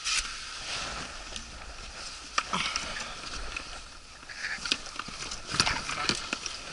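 Hand-handling of the outboard motor's transom bracket and mounting plate: scattered metal clicks and knocks, over rustling clothing.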